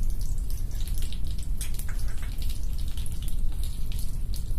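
Cumin seeds and a bay leaf crackling and sizzling in hot oil in a kadhai, with irregular sharp crackles over a steady low rumble.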